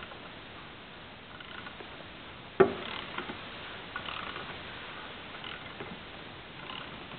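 Alfa Romeo Spider 2-litre four-cylinder short block being turned over slowly, with faint ticks and light squeaks from the moving parts. A single sharp knock comes about two and a half seconds in, followed by a few smaller clicks.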